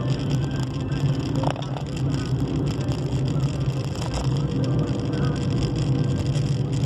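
A steady low droning hum at an even level, with a few faint short higher-pitched blips about a second and a half in, around four seconds in, and again near the end.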